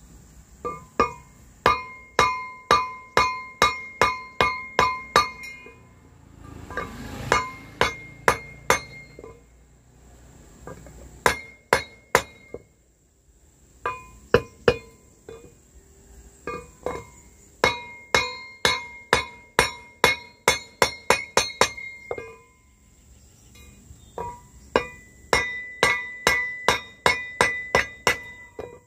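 Wooden mallet striking the blades of a brass three-blade boat propeller against a wooden block, each blow ringing like clinking metal. The strikes come about two or three a second in runs of several, with short pauses between. The blades are being hammered to reshape them so the propeller will not be too light for the car engine it is meant for.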